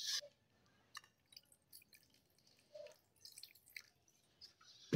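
Water poured from a plastic mug into a steel mixer-grinder jar of soaked semolina, heard as a few faint drips and small splashes, with a sharper tap near the end.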